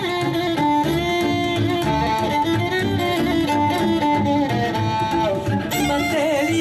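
Live Polish folk band playing an instrumental passage between sung verses: two fiddles carry the melody over a double bass keeping an even beat of about two a second. A woman's singing voice comes back in near the end.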